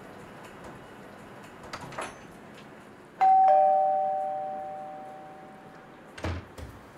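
Doorbell chiming a two-note ding-dong, a higher note then a lower one, fading away over about three seconds. A short thump follows near the end.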